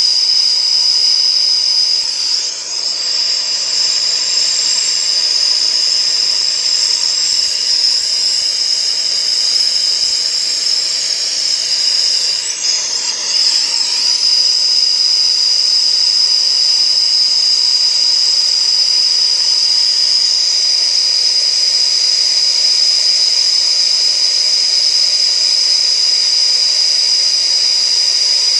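Air-acetylene torch burning straight acetylene with no oxygen, its flame held on a steel bar to heat it for bending: a loud, steady hiss with a high whistling tone. The sound dips briefly twice, about two seconds in and again around thirteen seconds.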